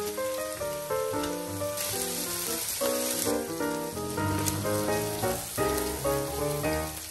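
Razor clams frying with garlic and parsley in a hot grill pan: a steady sizzle that stops abruptly at the end. Background music with plucked-sounding notes plays throughout.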